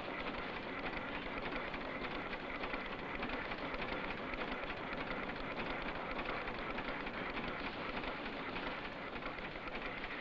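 A steady, even hiss with a fine crackle, without pitch or rhythm and unchanging in level.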